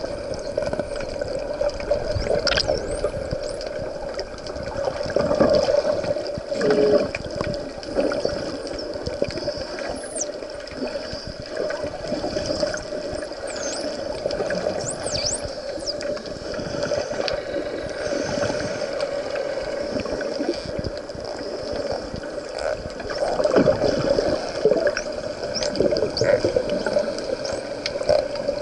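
Wild Indo-Pacific bottlenose dolphins whistling underwater, with many short high whistles sweeping up and down scattered throughout. Behind them are the swishing and bubbling of water around the swimmer, with louder surges about a fifth of the way in and again near the end.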